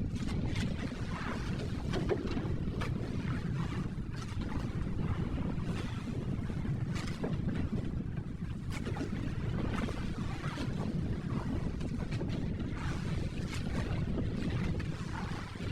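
Wind buffeting the microphone over sea water lapping against a boat, with scattered small knocks and splashes.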